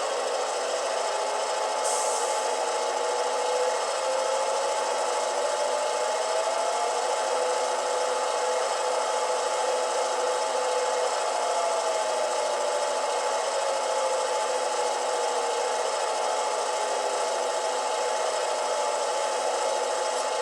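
Sound-decoder recording of an EMD GP9 diesel locomotive's prime mover, played by a LokSound 5 decoder through two tiny sugar-cube speakers in a sealed enclosure. The engine sound climbs in pitch over the first several seconds as it is notched up, holds, then winds back down from about twelve seconds in. A brief hiss comes about two seconds in.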